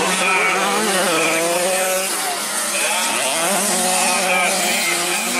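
65cc two-stroke motocross bike engines buzzing, their pitch rising and falling as the riders work the throttle through the dirt track's turns.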